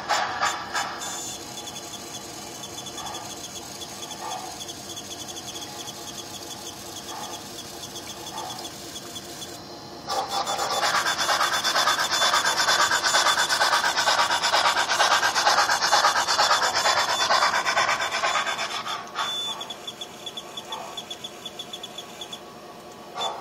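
HO-scale model trains running on a layout: the MTH K4 Pacific steam locomotive's sound and running gear give a steady mechanical rasp. About ten seconds in it turns much louder and harsher for about nine seconds while a second locomotive runs close by, then drops back.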